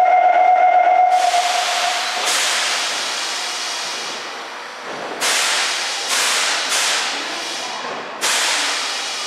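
Compressed air venting from a Meijō Line 2000-series subway train's pneumatic equipment during its pre-service inspection: one long hiss starting about a second in and fading over several seconds, then four shorter bursts of hiss. A pitched electronic tone sounds at the start and dies away in the first two seconds.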